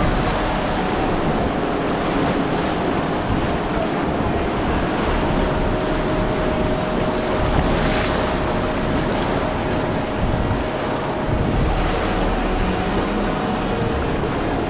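Whitewater rapids of the South Fork Payette River at high water, a steady rushing roar of water around a raft, with wind rumbling on the microphone.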